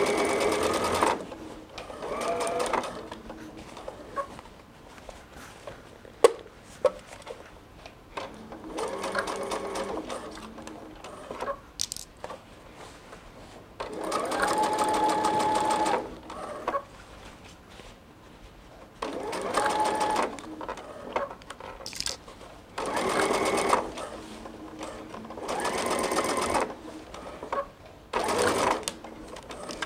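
Domestic sewing machine stitching a seam through the thick layers of a bag in short stop-start runs of one to two seconds, about eight in all. A few sharp clicks come in the pauses between runs.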